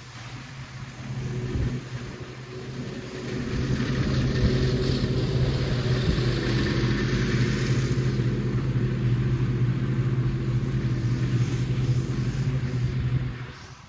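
Ride-on lawn mower engine running steadily. It gets louder about four seconds in and drops away shortly before the end.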